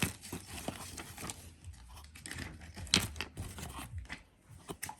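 Packaging being handled during an unboxing: irregular crinkling and tearing with scattered clicks and knocks, a sharp click about three seconds in.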